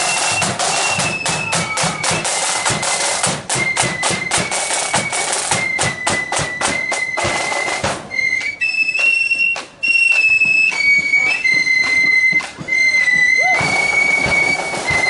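Marching flute band playing a tune: high flutes carry the melody in held, stepping notes over a steady run of drum strikes.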